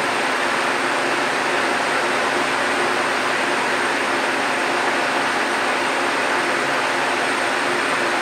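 Steady, even hiss with a faint high whine and low hum beneath it, unchanging throughout.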